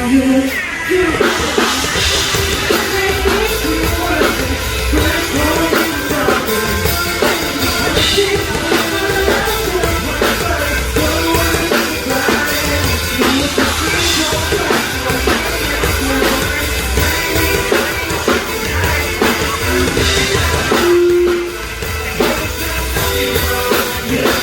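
Live band music played loud through a stage PA system: a drum kit with kick and snare under a moving melody line, with some singing.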